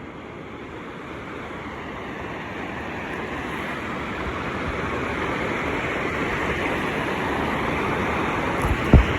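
Ocean surf washing on a beach, a steady rush of noise that swells gradually louder, with a single low thump just before the end.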